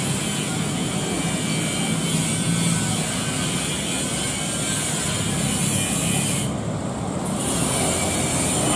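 Gulfstream G550's twin Rolls-Royce BR710 turbofans heard as a steady jet rush from the distant climbing aircraft at go-around power. The high hiss dips briefly a little after halfway.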